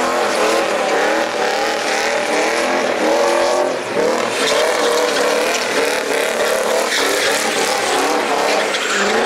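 Cars drifting: engines revving up and down in a constantly wavering pitch, with tyre squeal.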